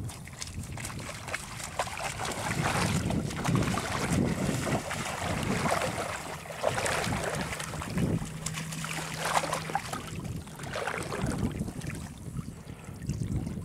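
Water splashing and sloshing as a person in waders and a black retriever wade through shallow floodwater, with wind buffeting the microphone.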